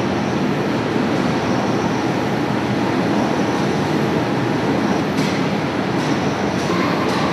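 Steady din of tea seed oil mill machinery running: motors, conveyors and processing equipment, with a couple of faint clicks near the end.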